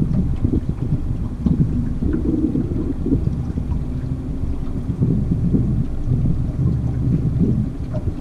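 Gusty low rumble of wind buffeting the camera microphone over a boat's motor running.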